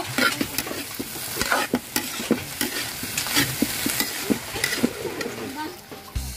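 Metal ladle scraping and knocking against a large wok in short, irregular strokes as boiled mung beans and pork are stirred and sautéed, with the food sizzling in hot oil. Near the end, water is poured into the wok.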